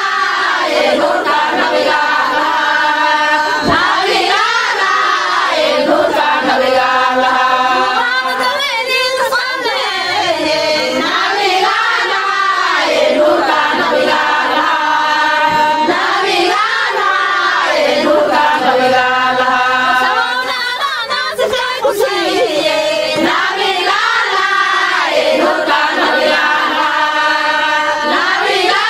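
A group of voices singing together, repeating the same short melodic phrase about every four seconds.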